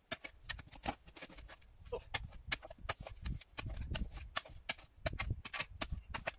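Steel spade digging into clay soil with stones in it: many sharp clicks and scrapes of the blade against stones, with heavier dull thuds as the blade is driven into the ground.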